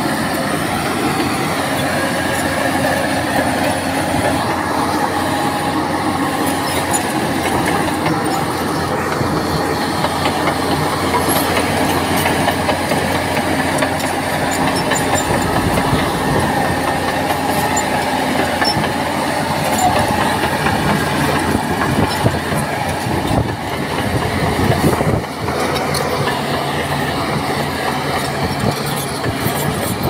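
Crawler bulldozer's diesel engine running steadily, with its steel tracks clattering and squealing.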